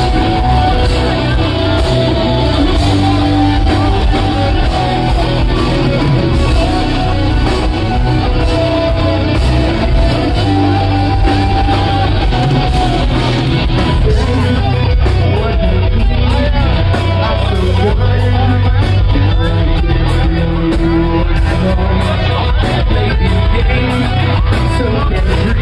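A rock band playing loud and without a break, with electric guitars, bass guitar and drums, heard live from the crowd.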